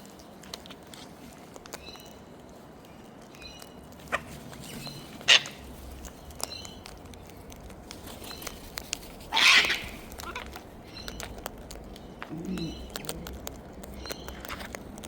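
Wild birds at a seed feed: a short double chirp repeating every second or two, scattered sharp clicks, and one louder harsh burst about nine seconds in.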